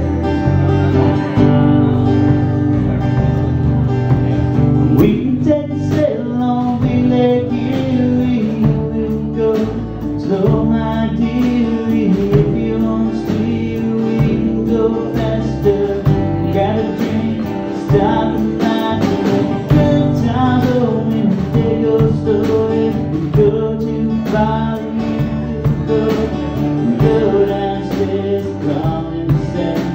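Steel-string acoustic guitar strummed in a steady rhythm, with a man singing over it in a live solo performance.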